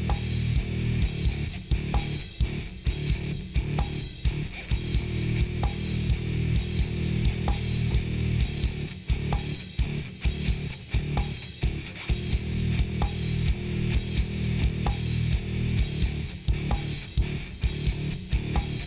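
Background music: rock with distorted electric guitar and a steady beat.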